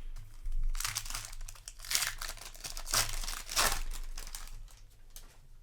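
Plastic Magic: The Gathering booster-pack wrapper crinkling and tearing as it is opened, in several crackly bursts from about a second in to about four seconds in.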